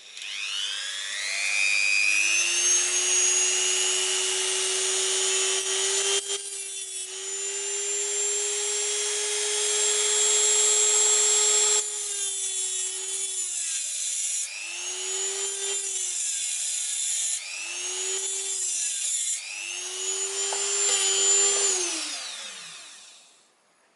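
Dremel rotary multitool with a cut-off disc spinning up to a high steady whine and cutting a metal driveshaft boot clamp, with a rougher grinding sound where the disc bites in. The tool is stopped and then restarted in three short runs, the last one winding down near the end.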